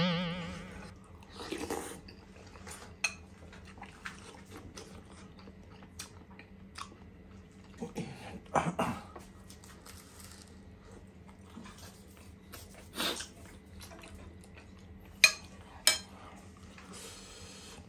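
Close-up eating sounds: chewing and biting on a ham sandwich, with scattered small clicks and a few short mouth noises. Near the end come two sharp clinks as a soup spoon is set down against a ceramic plate.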